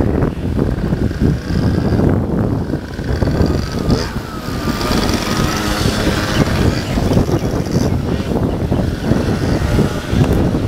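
Small moped engines running as mopeds ride past, under a rough low rumble. About four seconds in, one engine's pitch dips and rises again over a few seconds.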